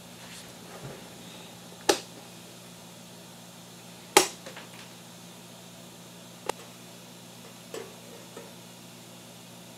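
Hand tin snips cutting sheet steel: four sharp snaps as the blades close through the metal, the loudest about two and four seconds in.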